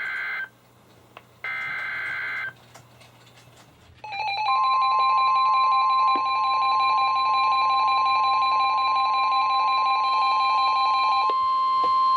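NOAA Weather Radio Emergency Alert System activation. Two short bursts of SAME digital header data are heard, then about four seconds in a loud steady 1050 Hz warning alarm tone starts, layered with several other steady alert tones from weather-radio receivers. The tone signals that a warning message, here a tornado warning, is about to be read.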